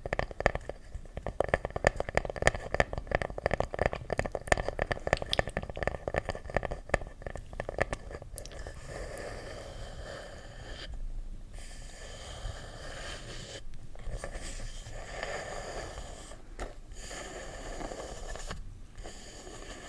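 Close crackling trigger sounds: dense, rapid crackles for about eight seconds, then a softer scratchy rustle with a few brief dropouts.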